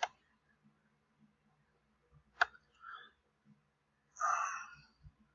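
A few computer mouse clicks in a quiet room: a faint one at the start and one sharp click about two and a half seconds in. A short breath-like noise follows near the end.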